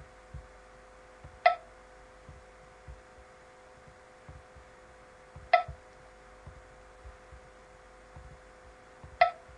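Three sharp computer mouse clicks, about four seconds apart, over a steady faint hum.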